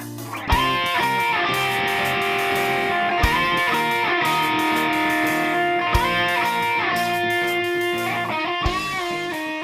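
Background music led by electric guitar, with sustained, bending notes over a slow beat.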